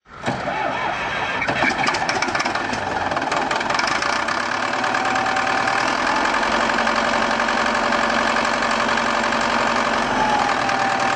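Diesel engine starting up, with an irregular clatter over the first couple of seconds, then running steadily.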